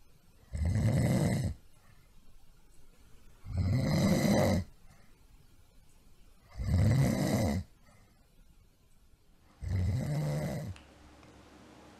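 A person snoring loudly, with four long snores about three seconds apart.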